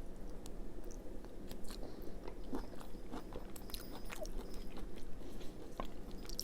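A person chewing a mouthful of tater tot casserole close to the microphone, with scattered small mouth clicks.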